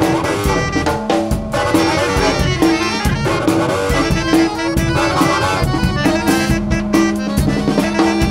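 Live jazz band playing instrumentally: double bass, drum kit, saxophone and accordion, with a steady drum beat under repeating sax and accordion notes.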